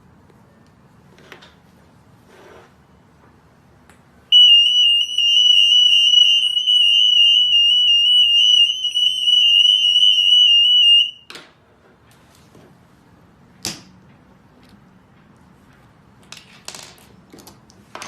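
Piezo anti-theft alarm of an EAS retail security system sounding a steady, high-pitched, slightly warbling tone for about seven seconds, then cutting off abruptly. A few sharp plastic-sounding clicks follow.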